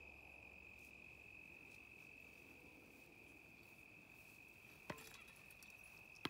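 Faint, steady high-pitched trill of crickets at dusk, with two sharp knocks about a second and a half apart near the end as a totem tennis ball is struck with a racquet.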